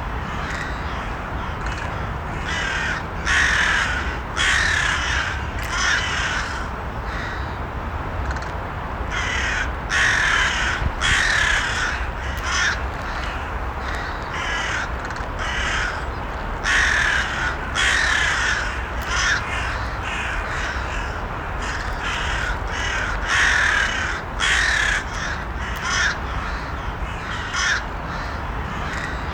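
Crows cawing again and again, their harsh calls coming in irregular runs over a steady low background rumble.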